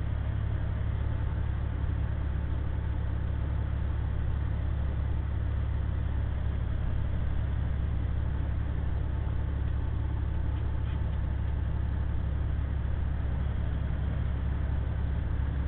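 Steady drone inside a semi-truck cab at highway speed: a low diesel engine hum under an even wash of road and wind noise.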